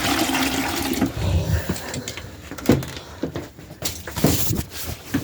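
Water rushing and splashing, then a few sharp knocks and clatters.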